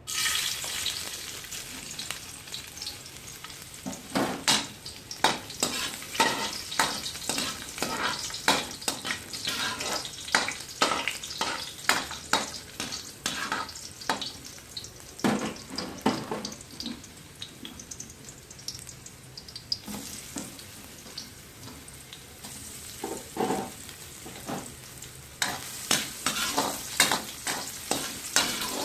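Garlic sizzling in hot cooking oil in a pan. The sizzle starts suddenly at the start as the garlic goes into the oil, and a utensil clicks and scrapes against the pan many times as it is stirred.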